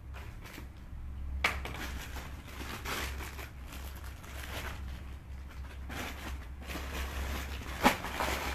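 Clothes being rummaged and handled, rustling with scattered small clicks and a sharp knock near the end, over a steady low hum.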